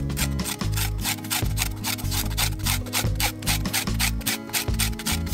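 Wire whisk beating a thin egg, sugar and milk mixture in a glass bowl: rapid, even swishing strokes, about five or six a second, over background music.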